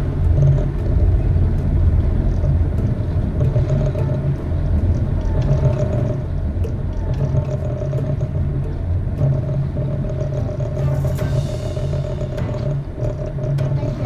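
Lagoon 400 catamaran's diesel engines running steadily under power, a low hum, as the boat is held alongside a pontoon.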